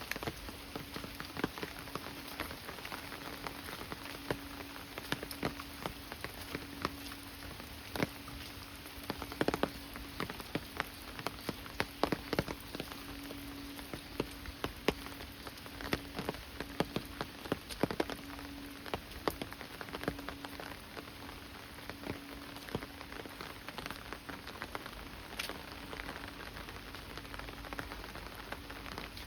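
Steady monsoon rain falling, with many sharp drops ticking close by. A faint low hum comes and goes underneath.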